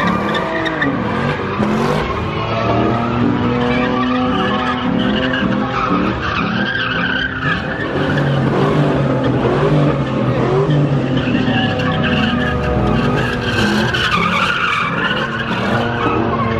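A car doing donuts: its engine revving up and down over and over while the rear tyres screech continuously against the pavement as they spin.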